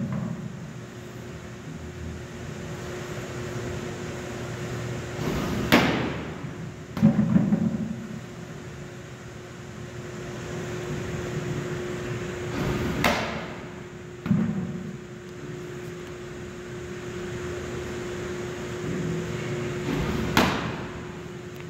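Baseballs popping sharply into a catcher's mitt three times, about seven seconds apart, each followed about a second later by a duller thud. A steady hum runs underneath.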